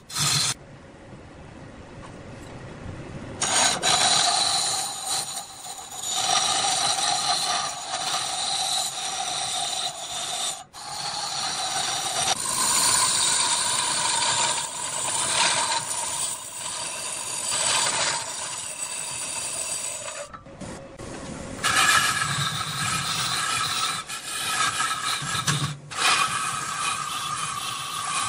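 A turning tool scraping into wood spinning on a large wood lathe: a steady rasping cut with ringing tones over it, breaking off briefly a few times.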